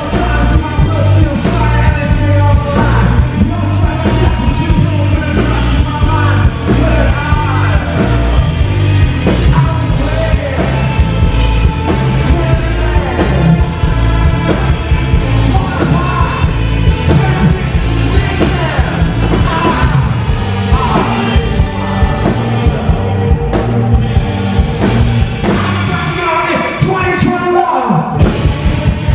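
Live punk-rock band playing loud, with drums, bass and guitar, and the frontman yelling and singing into the microphone. The low end drops out for a moment near the end.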